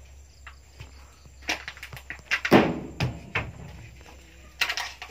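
Scattered sharp knocks and thumps, several in a row, the loudest about two and a half seconds in.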